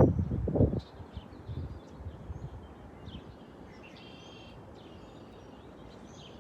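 Songbirds chirping faintly, with scattered short high chirps and one longer chirping call about four seconds in. A louder low rustling and knocking fills the first second.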